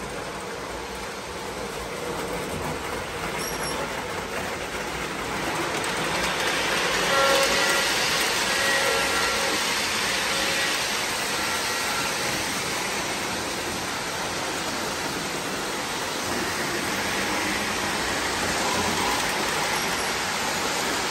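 O gauge model trains running on three-rail track: a steady rolling rumble and whirr of wheels and motors, growing louder from about six seconds in as a train passes close by.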